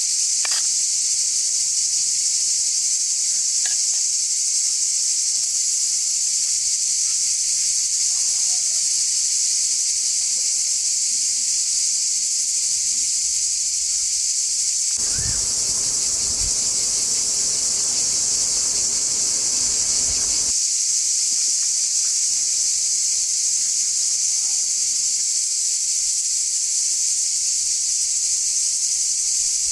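Steady, high-pitched insect chorus droning without a break. Midway, a low muffled rushing noise joins it for about five seconds, then stops.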